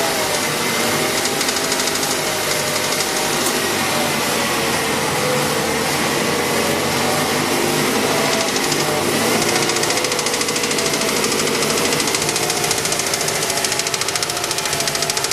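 Mazda 6 engine running with a rapid, even knocking from the engine, a knock whose cause the owner cannot identify. The engine speed drifts slightly up and down.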